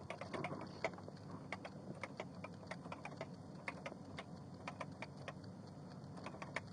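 Someone typing on a keyboard: quick, irregular key clicks, several a second.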